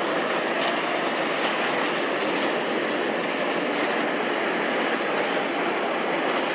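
Airbus A380's jet engines at taxi power, a steady, even rushing noise that neither rises nor falls.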